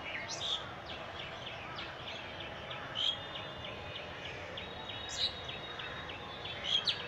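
Birds calling in the trees: quick series of short high notes repeating a few times a second, broken by four louder sharp calls, over a steady background hum.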